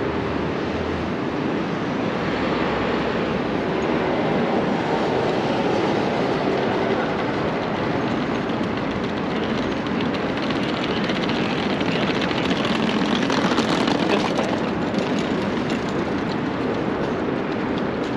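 Steady road traffic going past, a continuous hum of cars and trucks that swells twice as heavier vehicles pass.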